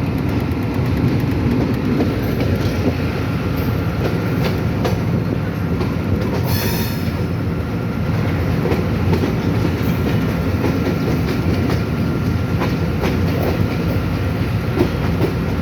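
Train running along the track: a steady rumble with the wheels clicking over rail joints, and a brief high-pitched burst about seven seconds in.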